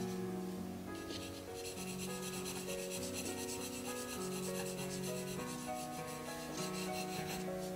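Graphite pencil hatching on drawing paper: a dry, scratchy rubbing of quick, repeated short strokes, starting about a second in, over soft background music.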